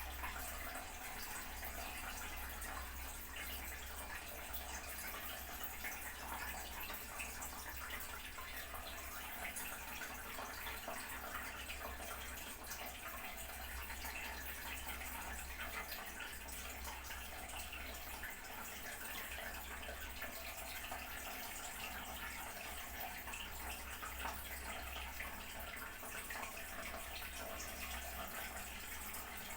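Toilet cistern refilling: water running steadily into the tank through the fill valve, an even hiss.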